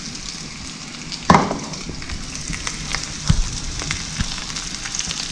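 Breaded bar jack fillets sizzling in hot oil in a frying pan, a steady hiss with scattered crackles. A sharp clack about a second in and a lighter knock near three seconds in stand out above the sizzle.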